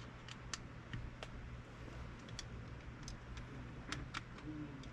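Light, irregular clicks and taps of small metal parts of a Shimano Stella spinning reel being handled and fitted during reassembly, over a steady low hum.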